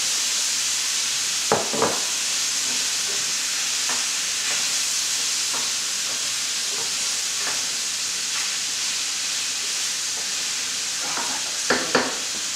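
Chicken thighs, bacon and onion sizzling steadily in a stainless steel sauté pan as diced apples are tipped in and stirred with a wooden spoon. A few sharp knocks of the bowl and spoon against the pan, a pair about a second and a half in and another pair near the end, with lighter taps between.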